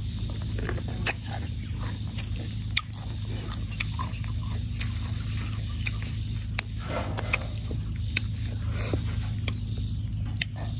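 A person chewing and crunching food close to the microphone, with frequent sharp mouth clicks and smacks, while eating tamarind with raw rice-field crab. A steady low hum runs underneath.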